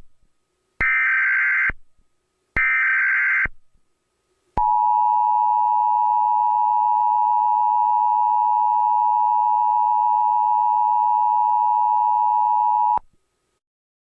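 Emergency Alert System SAME header: the end of one burst and two more short buzzy data-tone bursts about a second each, with pauses between. About a second later the EAS two-tone attention signal (853 and 960 Hz together) sounds steadily for about eight seconds and then cuts off suddenly.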